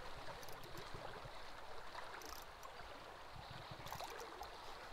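Creek water running over shallow riffles: a faint, steady wash.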